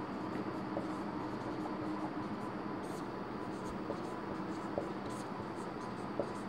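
Marker pen writing on a whiteboard: faint, scratchy strokes as letters are drawn.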